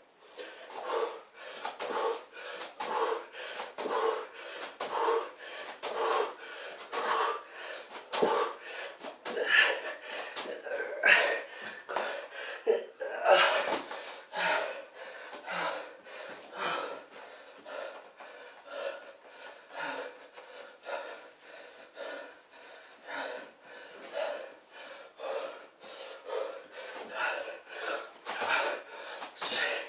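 A man's heavy, rhythmic panting from the exertion of a max set of split lunges, about one hard breath a second, with a few louder gasps partway through.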